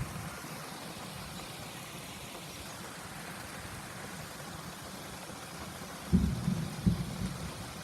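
A quick run of low, dull booms about six seconds in, over a steady hiss of storm noise; the booms may be thunder.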